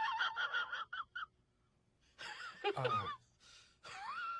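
A person's high-pitched, wavering vocal sounds in three short spells. The last is a note that rises and then wobbles while held.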